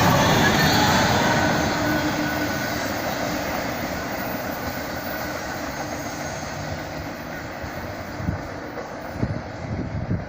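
Norfolk Southern intermodal freight train rolling past, its wheel and car noise fading steadily as it moves away. A few short low thumps come near the end.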